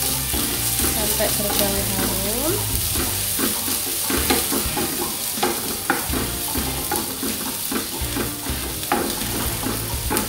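Sliced onion sizzling in hot oil in a nonstick frying pan, stirred with a wooden spatula that clicks and scrapes against the pan many times. The onion is being fried until fragrant.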